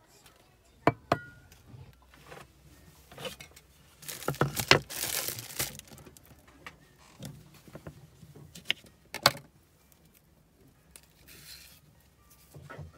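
Small handling noises on a hard countertop: a few sharp knocks and clinks, and about two seconds of rustling four to six seconds in.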